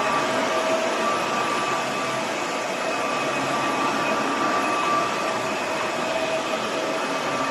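Roborock F25 GT cordless wet-dry vacuum mop running steadily: an even rush of suction with a steady motor whine.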